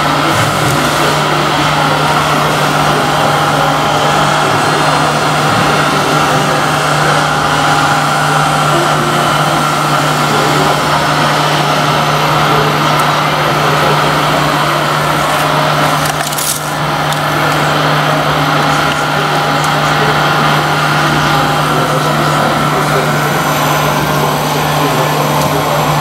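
Hydraulic pump of a large-scale RC Liebherr 960 excavator running with a steady whine while the machine digs in sand, with scraping from the bucket working the sand.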